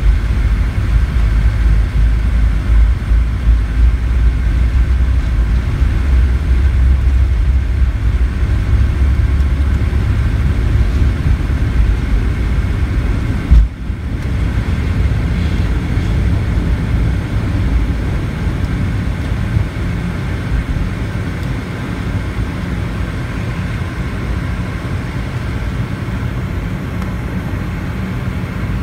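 Cabin sound of a Boeing 717-200 at takeoff thrust, its rear-mounted Rolls-Royce BR715 turbofans running over a heavy rumble from the wheels rolling down the runway. About fourteen seconds in comes a single thump, and the rumble stops as the jet lifts off, leaving a steady engine sound through the climb.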